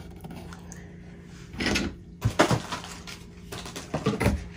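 A few knocks and clunks of a hard plastic nail lamp being handled and set down on a table, the loudest about halfway through.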